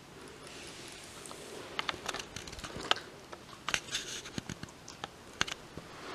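Kai Ken dog gnawing a Purina Dentalife dental chew stick: irregular sharp cracks and clicks of teeth biting into the chew, starting about two seconds in.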